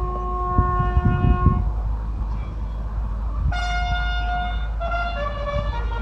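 Bugle sounding a salute as the national flag is lowered: a long held note, a pause of about two seconds, then a higher note followed by a few shorter ones, over a low rumble with occasional thumps.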